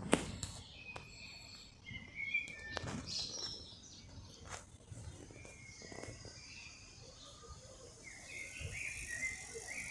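Birds chirping, with short high calls coming and going, and a few knocks in the first few seconds.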